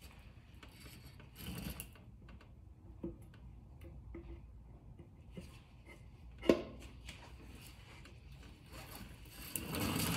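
Hand work fitting a motorcycle's front brake plate and greased axle into the wheel hub: quiet rubbing and scraping of metal parts with scattered small clicks, one sharp knock about six and a half seconds in, and louder scraping near the end.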